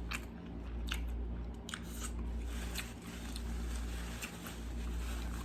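Close-miked mouth sounds of a person chewing a cheeseburger: scattered wet smacks and clicks about once a second, over a low steady hum.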